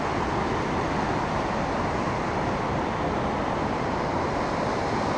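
Steady, even rush of ocean surf mixed with wind on the microphone.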